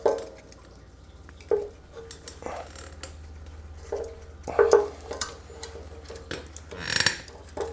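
Metal hand tools clinking and scraping against metal in a few short, scattered bursts, as pliers work at a clamped fuel line on a small engine's carburetor, over a steady low hum.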